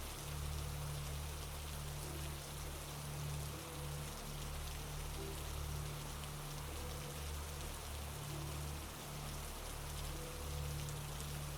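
Steady rain falling, an even hiss of many fine drops. A low steady hum runs underneath and breaks off briefly several times.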